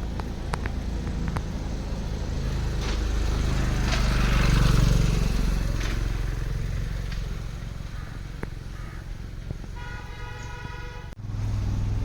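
Road traffic: a vehicle passes, loudest about four to five seconds in, and a horn honks for about a second near the end.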